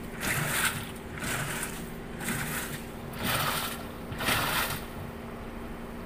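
Sharp top-loading automatic washing machine running its wash cycle: five swishes of water about a second apart as the wash agitates back and forth, over a steady motor hum. The swishes stop near the end, leaving the hum.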